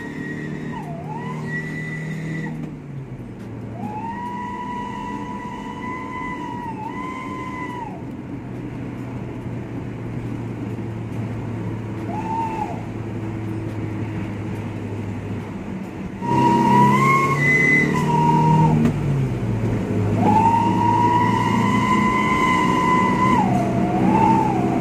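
Srigala ('wolf') whistle exhaust on a Daihatsu Gran Max pickup's petrol engine, giving a wolf-like howling whistle as the truck is driven and accelerates, heard from inside the cabin. About five howls, most held for several seconds, each rising at the start and sagging at the end, over the engine's drone; the howls grow louder about two-thirds of the way through.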